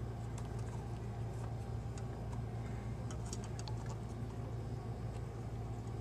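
Faint small clicks and rubs of fingers working a greased rubber O-ring down the metal body of a Delta single-handle faucet, a little cluster of them about three seconds in, over a steady low hum.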